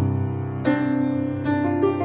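Piano played with both hands. A deep chord is struck at the start and held, and three more notes or chords are struck over it during the next two seconds.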